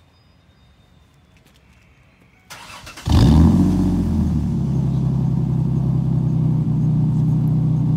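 Ford Explorer Sport Trac's 4.0-litre V6 with a Magnaflow exhaust cold-starting: a brief crank about two and a half seconds in, catching with a loud flare just after three seconds, then settling into a steady idle from the tailpipes.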